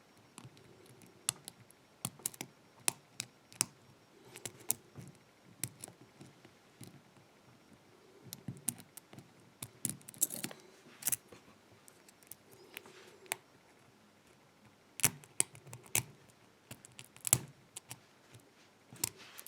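Lock picking in an old Lockwood padlock: a hook pick working the pins under heavy tension, giving irregular small metallic clicks and brief scrapes as pins are pushed up and set.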